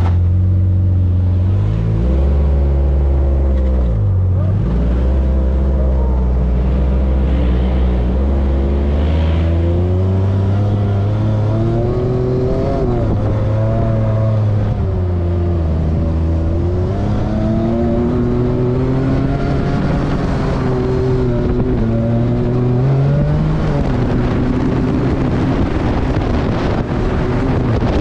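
Side-by-side UTV engine running under throttle, its pitch rising and falling every couple of seconds with speed changes.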